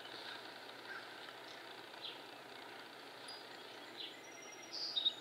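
Steady outdoor background noise with faint, scattered bird chirps, and a brief, louder, high chirping near the end.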